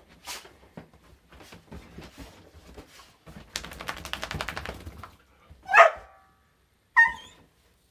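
Whippet-cross lurcher scrabbling and digging fast at a duvet on a bed, a rapid run of scratchy rustles. Near the end come two short, loud, high-pitched cries, the first falling in pitch.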